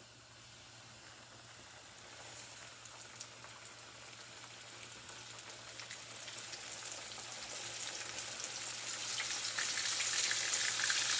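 Flour-dredged pork chops sizzling in hot oil in a cast-iron skillet, with scattered crackles. The sizzle grows steadily louder as more chops are laid into the pan.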